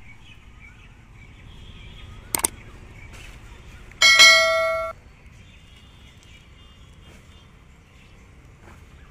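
A bright bell-like ding about four seconds in, ringing for just under a second and then cut off abruptly. A sharp click comes a couple of seconds before it, over faint outdoor background.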